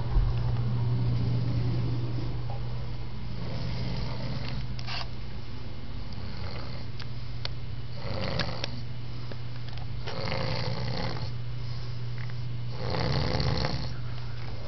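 A man snoring loudly in his sleep, a rough snore about every two to three seconds, the loudest near the end, over a steady low hum.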